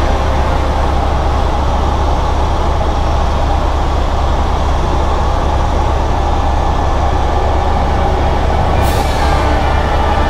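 Light helicopter in flight heard from inside the cabin: the steady, loud drone of the rotor and turbine with a constant whine over it. A brief rushing hiss rises near the end.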